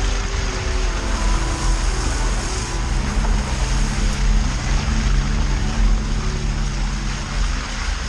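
Suzuki 4x4's engine running under load while the vehicle drives through mud and slush, its tone rising and falling a little with the revs, over a steady rush of tyre and road noise.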